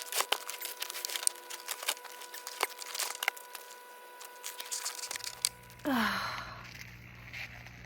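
Ice crackling with many sharp clicks and snaps, then about six seconds in a single loud zing that falls quickly in pitch, the laser-like 'singing' of cracking ice.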